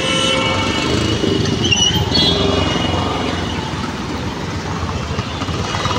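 Busy city road traffic: engines of cars, motorbikes and a three-wheeled auto-rickshaw passing close, a steady mix of engine rumble and road noise.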